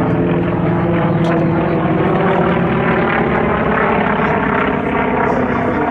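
North American T-28 Trojan's radial piston engine and propeller running steadily and loudly as the aircraft flies its display.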